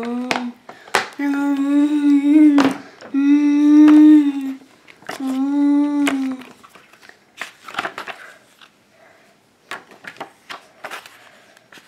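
A man humming four long held notes, with a few sharp clicks between them. Then paper and cardboard rustle and tap as a booklet is slid out of a cardboard DVD case.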